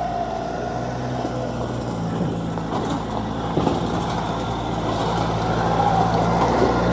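Nissan Frontier NP300 pickup's turbocharged engine pulling uphill, a steady engine drone with a faint turbo whistle, growing louder toward the end; these trucks are known for a noisy turbo.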